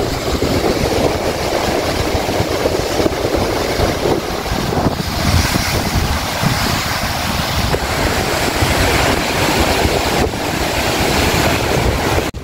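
Wind rushing over the microphone with sea waves washing, a steady rough noise that cuts off abruptly near the end.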